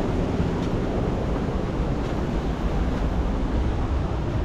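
Wind buffeting the camera microphone outdoors: a steady, uneven low rumble with a lighter hiss above it.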